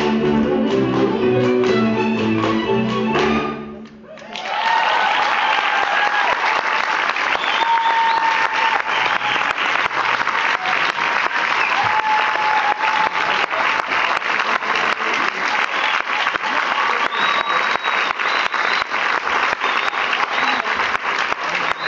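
A folk string band of fiddles and double bass plays the closing bars of a Hungarian dance tune and stops about three and a half seconds in. The audience then breaks into applause.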